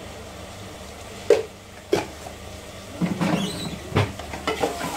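Kitchen utensils knocking and clattering while a spoonful of ground coriander goes into an aluminium pressure cooker. There are two sharp knocks about a second and a half and two seconds in, then a run of clinks and scrapes from about three seconds, with another knock near four seconds.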